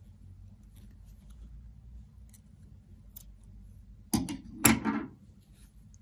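Faint rustling and small clicks of yarn and a crochet hook being handled, then two loud knocks about half a second apart, about four seconds in.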